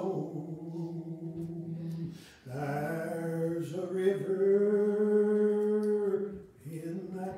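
A man's voice singing unaccompanied in long, drawn-out held notes, with short breaths between phrases.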